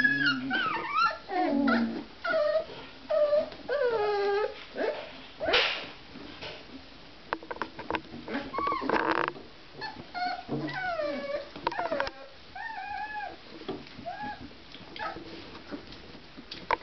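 A litter of 24-day-old Basset Artésien Normand puppies crying out as they play, a string of short high yelps and whines that bend up and down in pitch, sometimes two at once. A short burst of noise breaks in about five seconds in.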